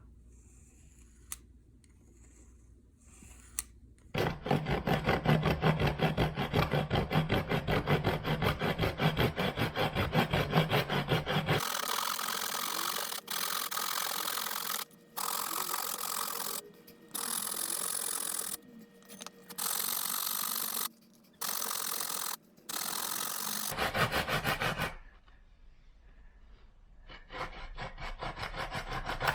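Wood being worked with tools. After a few quiet seconds come about seven seconds of fast, rhythmic rasping strokes, then a steadier rasping noise that stops and starts again several times.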